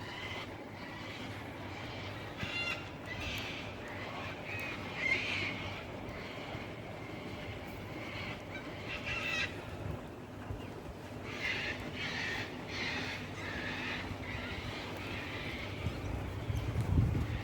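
Birds calling in several bouts of short, harsh repeated calls, with a low rumble near the end.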